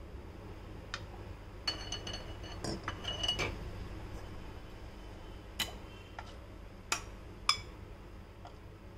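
Steel ladle clinking against a drinking glass and the rim of a metal pan while thick mango pudding is ladled into glasses: several sharp clinks spread through, some followed by a short ring.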